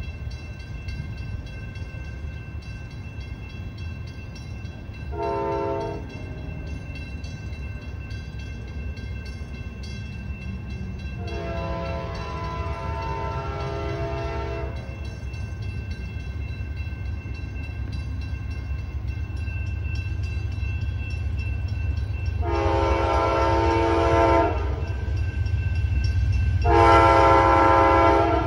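An approaching passenger train's multi-note air horn sounds a short blast about five seconds in, then three longer blasts, the last two close together near the end. Under the horn, the low rumble of the oncoming train grows steadily louder.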